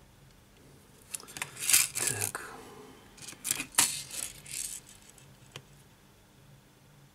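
Small clicks and scrapes of plastic and metal as fingers press the battery and display flex-cable connectors of an opened Sony Xperia E4 smartphone into their sockets on the board. They come in two short clusters, about a second and a half apart, with one more click near the end.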